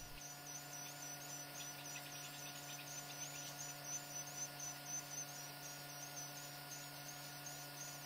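Steady electrical hum over a faint hiss, with a few faint, rapid high-pitched ticks about two seconds in.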